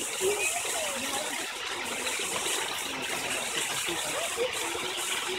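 Steady rush of running water, with faint distant voices.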